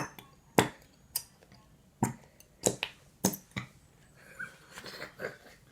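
PVA glue squirting out of a squeeze bottle in short, sharp wet pops, about seven of them, then softer squelching sounds near the end.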